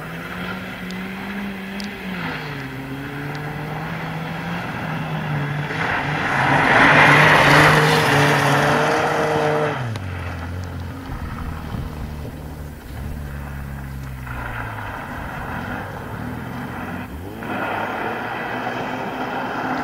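Rally car engine revving hard as it comes along a gravel road, with a loud rush of gravel and tyre noise as it passes close about six to ten seconds in. The engine note then drops and fades as the car pulls away, and another car's engine is heard approaching near the end.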